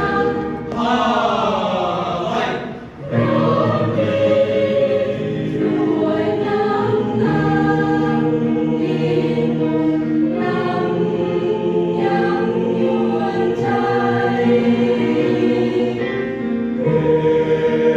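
Choir singing in harmony, holding chords; about a second in the voices slide downward together and briefly break off, then take up sustained chords again.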